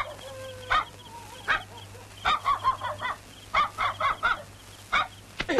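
Geese honking, short calls repeated in quick runs of two to five.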